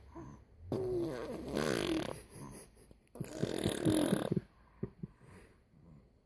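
A baby making fart sounds with the mouth, blowing buzzing raspberries with voice. Two long buzzes come, the first about a second in and the second about three seconds in, then a few small ones.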